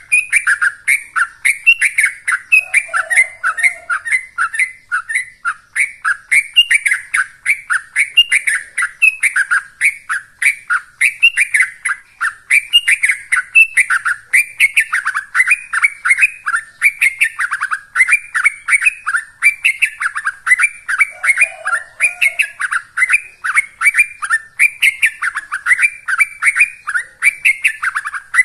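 Yellow-vented bulbul (trucukan) singing an unbroken run of fast chattering notes, about three to four a second with no pauses: the rapid continuous 'ropel' song that bird keepers prize.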